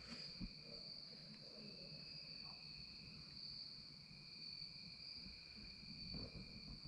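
Faint, steady high-pitched chorus of crickets or similar insects in the evening, with a couple of soft low thumps.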